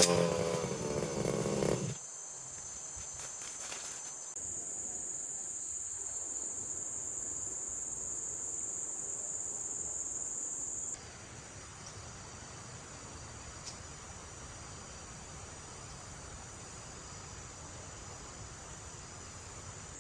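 Brush cutter engine dying away in the first two seconds, then a steady, high-pitched chirring of insects that drops to a lower level about eleven seconds in.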